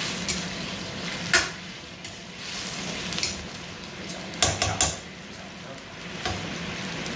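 Sweet and sour sauce with pork and pineapple sizzling in a wok, stirred with a metal ladle that knocks against the pan about six times, loudest just over a second in and twice in quick succession about halfway through.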